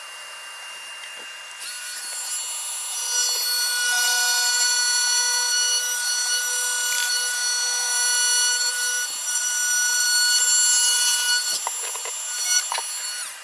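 Oscillating multi-tool with a round saw blade cutting a white backing plate, a steady whine of several fixed tones. The cutting grows louder about two seconds in and stops near the end, followed by a few knocks.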